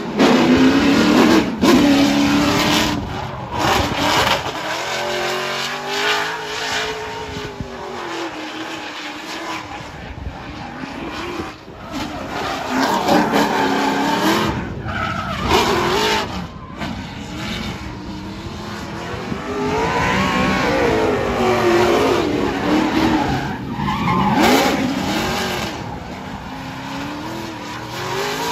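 Ford Mustang RTR drift car sliding through a drift run, its engine revving up and down over and over as the throttle is worked, with tyres squealing and skidding.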